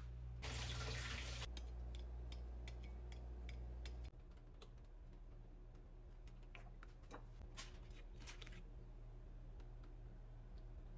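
Scattered light clicks and taps of kitchen utensils being handled during food preparation, after a brief noisy rustle about half a second in, over a faint low hum.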